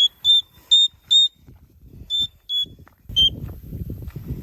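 Black-headed caique giving a series of loud, shrill, single-pitched whistle calls: four quick ones close together, a short pause, then three more.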